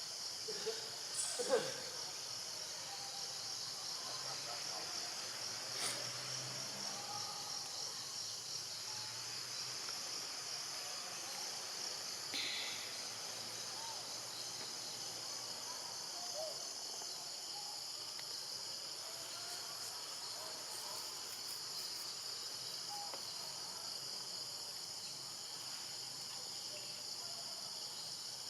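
Steady high-pitched insect chorus, crickets or cicadas, droning without a break, with a brief, louder falling call or squeak about a second and a half in.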